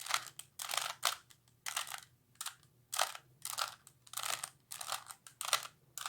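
Plastic 3x3x3 Rubik's Cube having its layers turned in quick succession while a solving algorithm is executed, a short scraping click with each turn, about three turns a second.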